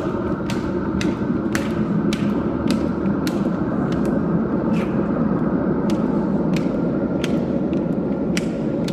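Metro station escalator running: a steady low rumble with a faint whine, and sharp clicks about twice a second as the steps pass.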